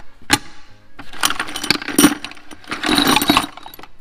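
Loose metal engine parts (pushrods, bolts and small brackets) clattering and clinking in a plastic bucket as a hand rummages through them: a sharp click near the start, then two longer bursts of clatter.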